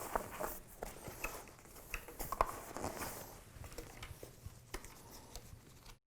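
Fabric harness straps being handled and fed through plastic cam locks on the back of a child's seat: soft rustling with scattered small clicks and knocks, busiest in the first three seconds. The sound cuts off to dead silence just before the end.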